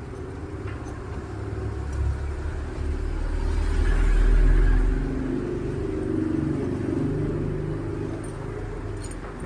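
Kawasaki Barako motorcycle engine running after being started soaking wet from rain, swelling louder about four seconds in and then settling back.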